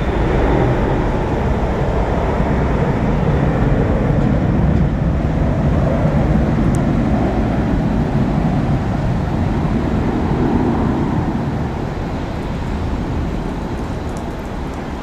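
Airbus A300-600F freighter's twin Pratt & Whitney PW4158 turbofans at takeoff power during the climb-out: a loud, steady, low rumble that slowly fades over the last few seconds as the jet climbs away.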